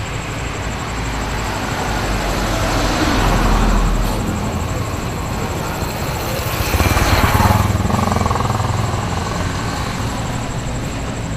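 Road traffic at night: a car passes, swelling to its loudest about three and a half seconds in, then a motorcycle rides by close, loudest about seven seconds in. Steady traffic noise carries on underneath.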